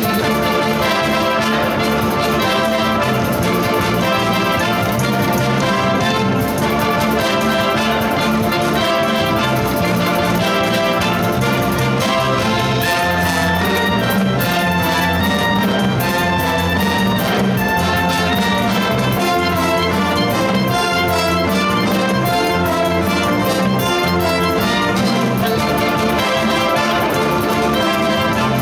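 School wind band playing a Eurobeat medley of Disney tunes live: flutes, clarinets and saxophones with trumpets, trombones and sousaphones over drum kit and electric bass.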